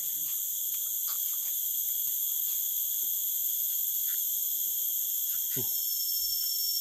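Steady, shrill chorus of forest insects buzzing in several high pitches at once, with no let-up.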